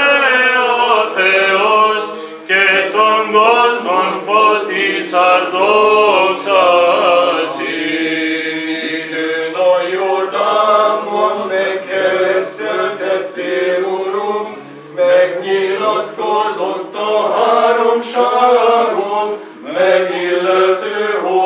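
Greek Orthodox Byzantine chant sung by voices, a slow, ornamented melody that carries on with only short breaths between phrases.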